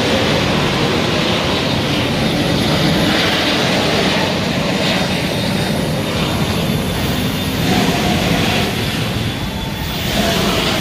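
Tracked armoured vehicle driving off down a street, its engine running loud and steady.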